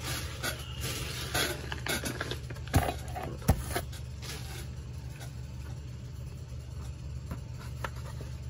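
Plastic packaging crinkling and rustling as a tightly wrapped model-kit decal sheet is worked free by hand, busiest in the first half, with two sharp clicks about three seconds in.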